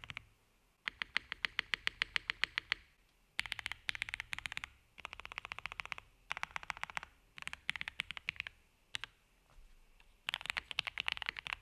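Typing on a Jelly Evolv custom mechanical keyboard with lubed and filmed Gateron Oil King linear switches and PBT keycaps, built with case, PE and plate foam for a creamy sound. The keystrokes come in quick runs of one to two seconds with short pauses between them, a single keystroke about nine seconds in, and a long fast run starting about ten seconds in.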